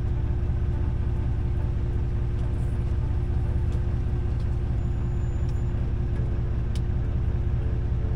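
Fishing boat's engine running steadily: a deep, even rumble with a constant hum, and a few faint ticks over it.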